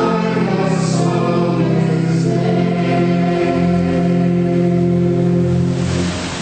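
Church choir singing, ending on a long held chord that stops near the end.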